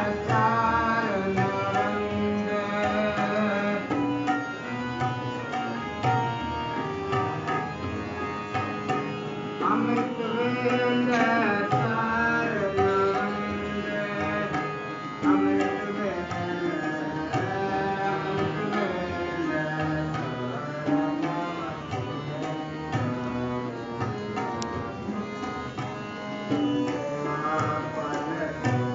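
Gurbani kirtan: a shabad sung to harmonium with tabla accompaniment, the tabla strokes running steadily under the melody.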